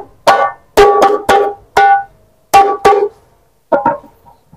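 Hadroh frame drum (rebana) with a white head struck by hand: about nine sharp slaps in an uneven rhythm, each ringing briefly with a clear pitched tone.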